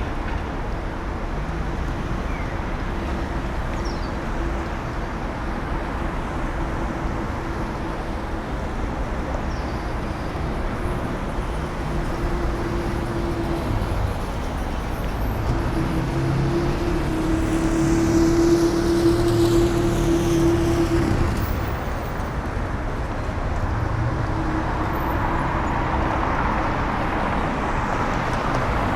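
Busy city street traffic: a steady rumble of passing cars, with a heavier vehicle's engine hum swelling and passing through the middle before fading.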